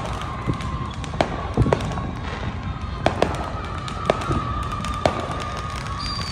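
Fireworks going off: about ten sharp bangs and pops at irregular spacing, one or two a second, over a constant rumble of more distant explosions.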